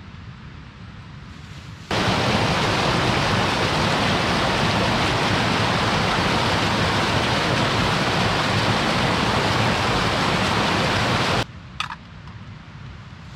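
Small mountain stream cascading over rocks in a little waterfall: a loud, steady rush of water that starts abruptly about two seconds in and cuts off abruptly near the end.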